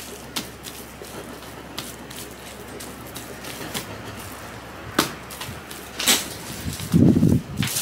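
Plastic cling film crinkling and crackling as hands press it down over a tart crust in a metal tart tin, with scattered sharp crackles. A dull, low thump about seven seconds in, the loudest sound.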